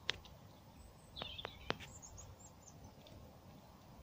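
Quiet outdoor background with faint bird chirps and a few light clicks: one just after the start and three close together about a second in.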